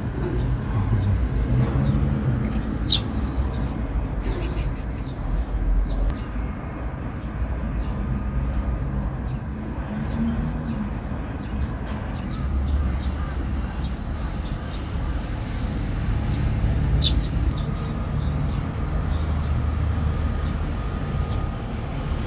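Steady low traffic rumble of an urban rooftop, with a few short high chirps from Eurasian tree sparrows: the clearest about three seconds in and another past the middle.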